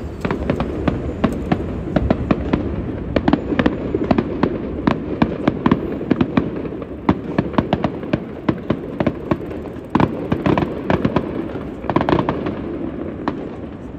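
Aerial fireworks going off, many sharp bangs and crackles in quick succession over a steady low background noise.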